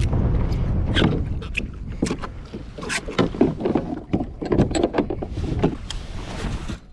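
Wind buffeting the microphone, with scattered knocks and clatters of hands and gear against a plastic fishing kayak's hull and controls.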